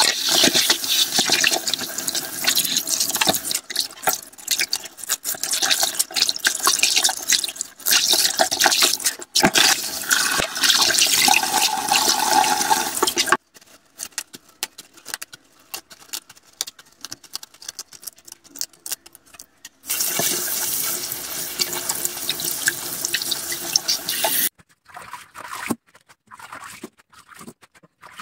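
Kitchen tap running into a metal frying pan in a sink, the water splashing as lettuce leaves are rinsed. The flow cuts off about thirteen seconds in, leaving small clicks and splashes of handling. It runs again for about four seconds, then stops.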